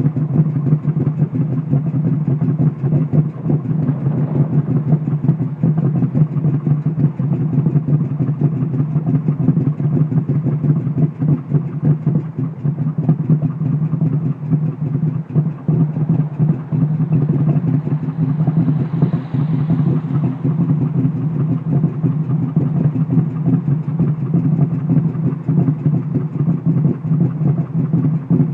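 Ford Mustang engine idling steadily with a choppy, uneven beat from a misfire, sounding like the lumpy idle of a performance camshaft.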